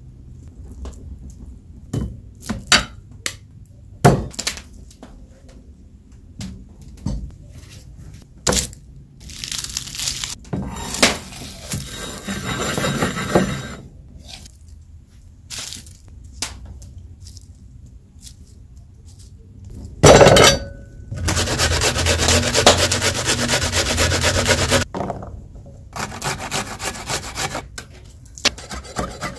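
Food preparation on a wooden cutting board: scattered knocks and taps, stretches of rough scraping and grinding, a loud knock about two-thirds of the way in, then several seconds of steady rasping and a run of quick regular strokes near the end.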